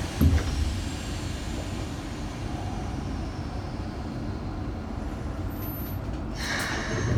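Steady rumble inside a Keikyu New 1000 series train car, with a low thump just after the start and another brief knock near the end.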